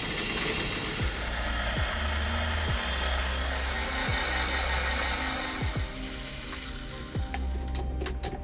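A twist drill running in a machine spindle and cutting a hole through a metal bar, a steady high whirring hiss that stops near the end. Background music plays alongside.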